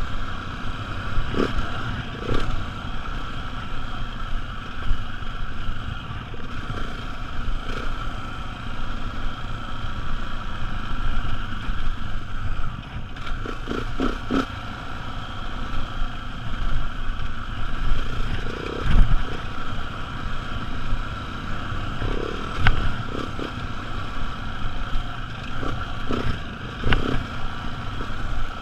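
Beta dirt bike engine running at a steady trail pace while riding a rough dirt track, with scattered knocks and rattles from the bike over the bumps.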